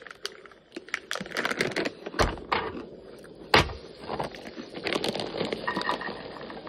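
Rustling and crinkling of food packaging being handled, with scattered small clicks and two sharper knocks about two and three and a half seconds in.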